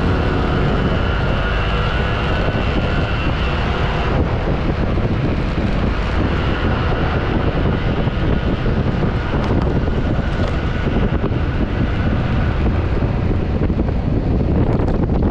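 Yamaha NMAX scooter's single-cylinder engine running steadily under way, with heavy wind rumble on the action camera's microphone.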